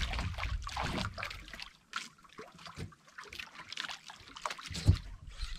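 Sea water lapping and splashing against the hull of a small outrigger boat, with wind rumbling on the microphone in the first second or so. A single thump comes near the end.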